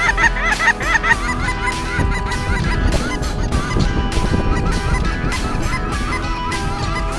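A flock of geese honking, many short calls overlapping, thickest in the first second or so. A steady beat of background music runs underneath.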